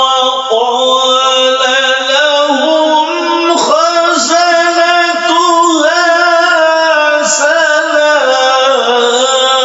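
Intro music of melodic male singing: long held notes that glide slowly up and down, with a new phrase starting near the end.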